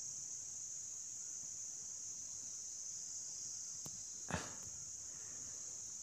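Quiet background with a steady high-pitched hiss, and a brief soft sound about four seconds in.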